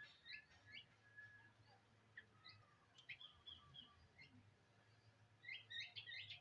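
Faint, high-pitched bird chirps and squeaks, short and scattered, busiest near the end, over a faint steady low hum.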